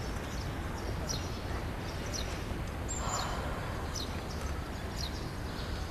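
Small birds chirping, repeated short falling chirps about twice a second, over a steady low background rumble.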